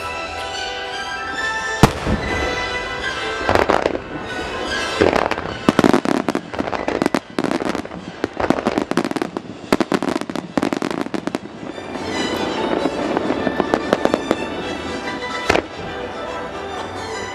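Aerial fireworks shells bursting over music played along with the show. There is a sharp bang about two seconds in, then rapid volleys of bangs through the middle, a stretch of fast crackling, and one more bang near the end.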